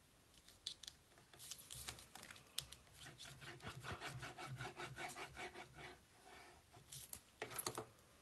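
Glue applicator rubbed in rapid back-and-forth strokes across a sheet of cardstock, followed by a brief rustle of the card being handled near the end.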